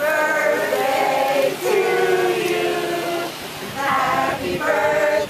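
A group of people singing together in long held notes.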